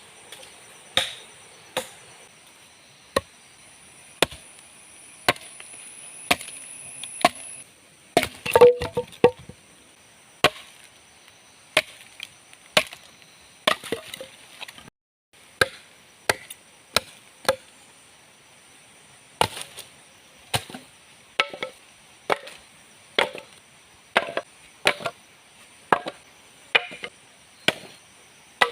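Wood being chopped with a blade in sharp single strokes, roughly one a second, with a quick flurry of blows about nine seconds in. A steady high buzz of forest insects runs underneath.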